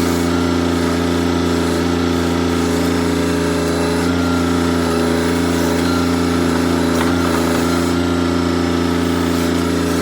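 Kioti CK3510SE compact tractor's three-cylinder diesel engine running steadily at a constant speed.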